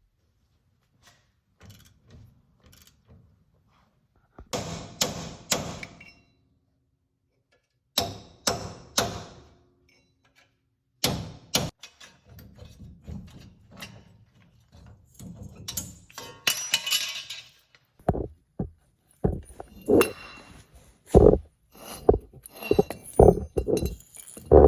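Metal knocks, clinks and clangs as the worn front wheel hub assembly is worked loose from the steering knuckle and handled, in separate clusters of a few strikes each, then a quicker run of solid knocks over the last several seconds.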